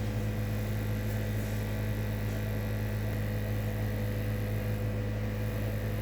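Steady low hum with a few fixed tones, unchanging throughout.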